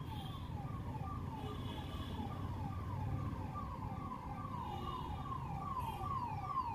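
Electronic siren repeating a short falling tone about three times a second, growing louder toward the end, over a steady low rumble.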